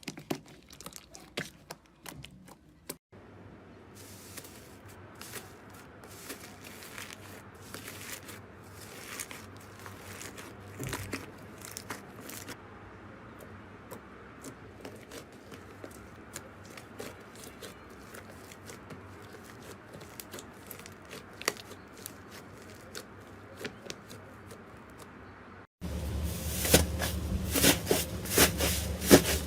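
Slime being squished and stretched by hand, giving many small sticky crackling clicks and pops. The sound cuts about three seconds in, and again near the end, where it gets louder.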